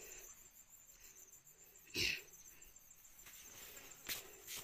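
Pause in the singing: faint background hiss, with one brief sound about two seconds in and two faint clicks near the end.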